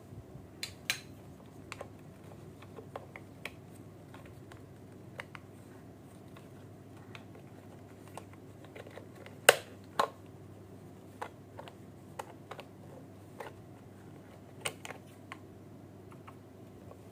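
Irregular small clicks and taps of a plastic toy bubble gun and its packaging being handled, about a dozen in all, with two louder knocks about nine and a half and ten seconds in, over a faint steady hum.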